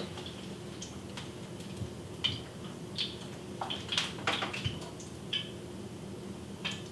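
A few scattered light clinks and taps of kitchen cookware, typical of a hot pan of frying grease being moved off the stove burner, over a steady low hum.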